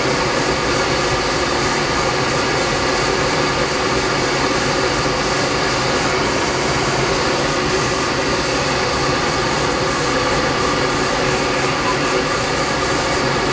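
Steady engine drone of a tow plane's propeller engine, mixed with airflow rushing past a glider canopy during an aerotow.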